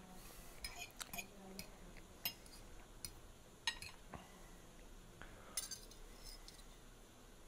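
Metal fork lightly clinking and scraping against a bowl while twirling spaghetti: about ten faint, scattered taps.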